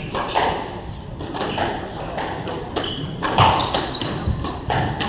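Squash rally: the ball smacking off rackets, walls and the wooden floor in quick irregular hits that ring in the enclosed court, with short shoe squeaks on the floorboards. The loudest hit comes about three and a half seconds in.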